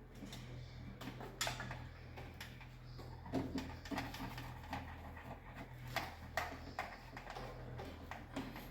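Scattered light clicks and taps from hand work at a distribution board, as conductors are handled and connected to a circuit breaker, over a steady low hum.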